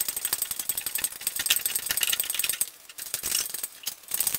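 Engine hoist lifting the engine out of the car on its chain: fast metallic clicking and rattling from the hoist and chain. It pauses briefly past halfway, then comes back in shorter runs.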